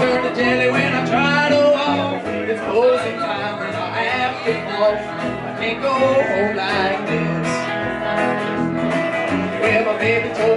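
Live acoustic country-bluegrass band playing: plucked upright bass and strummed acoustic guitar, with a singing voice over them.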